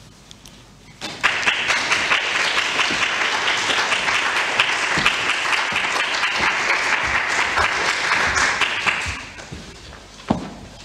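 Small audience applauding: the clapping starts about a second in, holds steady for around eight seconds and dies away near the end, followed by a single thump.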